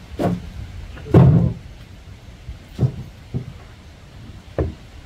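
An elephant's front foot bumping onto a wooden log rest: about five dull thumps spread over a few seconds, the loudest about a second in.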